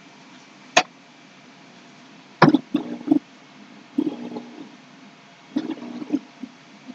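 Handling noises from work on wooden boards and paper patterns: a sharp click about a second in, then three short bouts of knocking and squeaky scraping.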